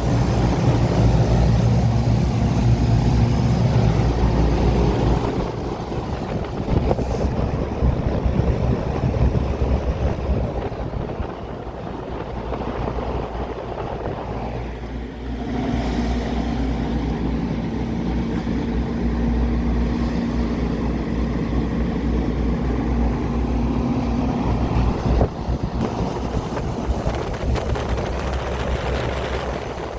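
Goodman 5-ton package heat pump running in cooling mode: a steady compressor hum under the rush of the condenser fan's air, with wind on the microphone. A steady humming note joins about halfway through and drops out a few seconds before the end.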